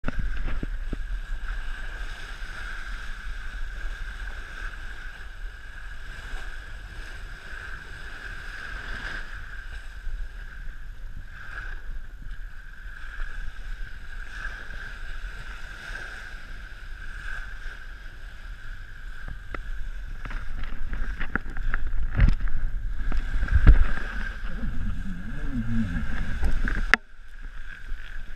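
Water rushing and splashing along the hull of a sailing yacht as it runs fast under spinnaker, with wind buffeting the microphone in a low rumble. It grows louder and choppier with a few knocks about two-thirds of the way through, then drops off suddenly near the end.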